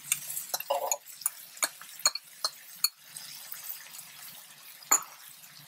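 Tomato purée poured from a plastic cup into a stainless steel pan of cooking chicken and vegetables. A run of light clicks and taps of the cup against the pan goes on for the first three seconds, then one sharp tap near the end.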